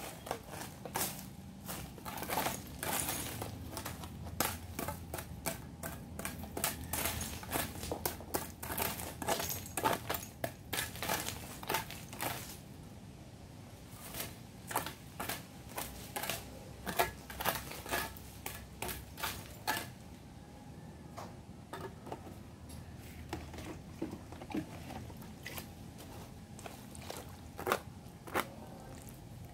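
A hand trowel scraping and chopping through a pile of dry sand-and-cement mix in quick, irregular strokes, dense for about the first twenty seconds, then sparser: cement being mixed by hand.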